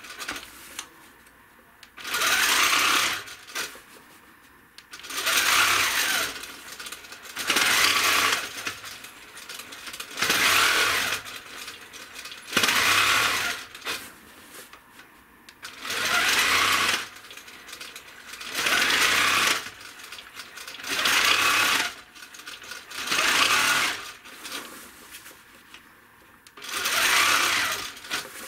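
Handi Quilter longarm quilting machine stitching in short runs of about a second, stopping and starting again about ten times, as the quilting is guided along a ruler.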